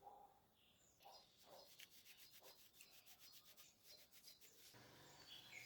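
Faint hand-work sounds: quick, light rubbing or scraping with a rapid run of small ticks. A low steady hum comes in near the end.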